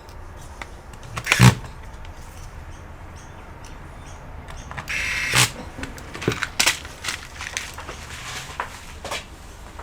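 Small clicks and knocks of laptop parts and tools being handled during reassembly, with a brief buzz about five seconds in.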